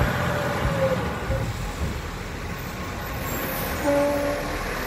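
Diesel engine of an automated side-loader garbage truck running as the truck drives up and slows at the curbside bins, with a brief brake squeal about four seconds in.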